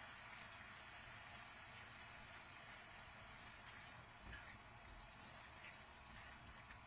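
Faint, steady sizzle of a masala sauce with cream simmering in a frying pan.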